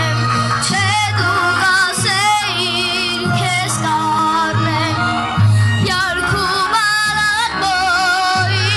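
A boy singing into a microphone over a backing track with a recurring bass note; the voice wavers with strong vibrato and ornamented runs.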